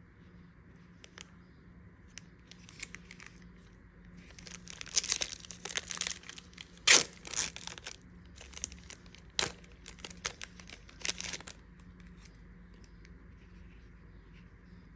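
Foil wrapper of a Magic: The Gathering booster pack being torn open and crinkled: a run of tearing and sharp crackles from about four to eleven seconds in, the loudest snap near the middle, with a few light crinkles before it.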